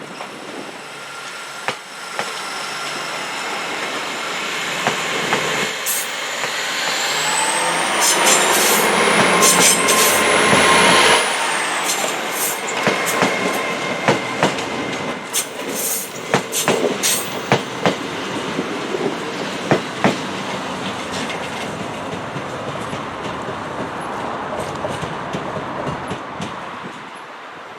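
A train moving past on the track, growing louder to a peak about eight to eleven seconds in, with a high whine rising in pitch. After that come repeated clacks of wheels over rail joints, which gradually fade.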